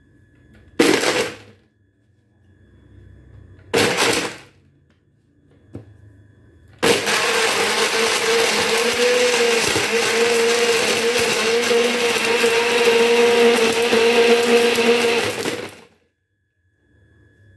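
Electric countertop blender blending pitted dates with cold milk: two short pulses a few seconds apart, then a steady run of about nine seconds that cuts off suddenly.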